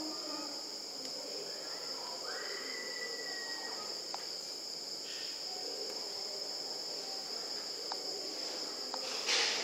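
Steady high-pitched insect trill, unbroken throughout, with a few faint clicks and a brief louder rustle near the end.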